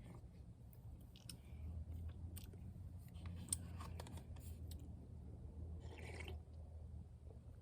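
A person eating, chewing, with scattered light clicks and taps of utensils, over a low steady hum.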